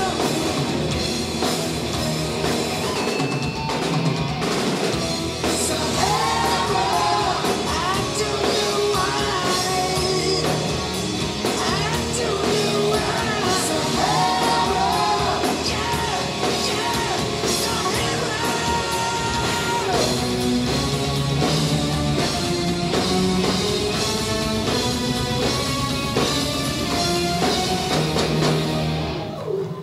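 Live hard rock band playing loudly: a male lead vocal sings over a drum kit, electric guitar and bass guitar through stage amplifiers. The music stops at the very end.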